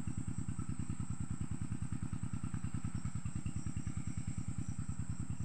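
Small engine running steadily with a fast, even chugging beat.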